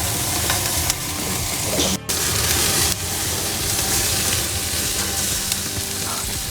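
Chicken skewers and a chistorra sausage sizzling on a barbecue grill, fat dripping into the fire; a steady hiss with a brief break about two seconds in.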